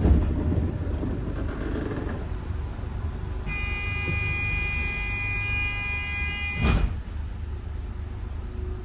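Bus running with a steady low rumble. About three seconds in, a steady high pitched tone starts and holds for about three seconds, then stops with a short thump.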